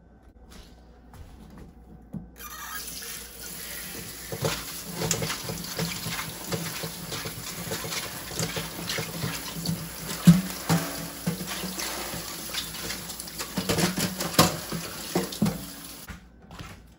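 Kitchen tap running into a stainless steel sink as cut bok choy stems are rinsed in a wire-mesh colander, with frequent knocks and clatter of the pieces and colander against the sink. The water comes on a couple of seconds in and shuts off near the end.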